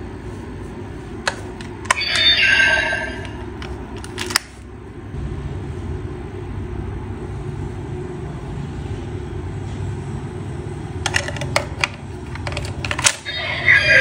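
DX Blazar Brace toy: sharp plastic clicks as its parts are worked and a Blazar Stone is fitted, with a short electronic sound effect from its speaker about two seconds in and another starting just before the end. A low steady hum runs underneath.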